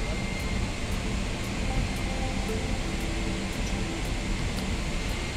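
Steady rushing hum of the ventilation and aircraft noise in an airport jet bridge, with a thin high tone and a few faint short notes under it.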